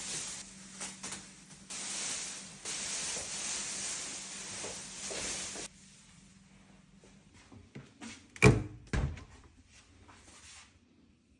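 Handling of the new fridge and its packaging: a hissing rustle for about six seconds, then two loud thumps about half a second apart.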